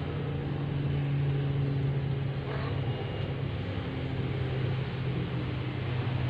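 A steady low hum with a faint hiss over it, holding level throughout.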